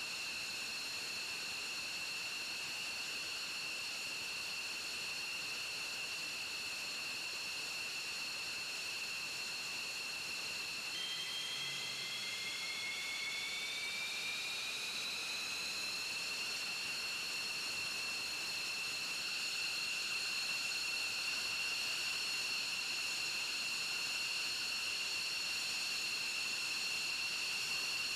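F-15E Strike Eagle jet engines running on the ground: a steady high-pitched whine over a hiss. About eleven seconds in, a second whine starts lower and rises in pitch for a few seconds, then holds steady, and the sound grows a little louder.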